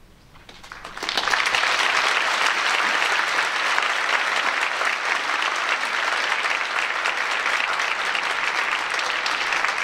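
Audience applauding, beginning out of a short hush and swelling to full strength about a second in, then holding steady.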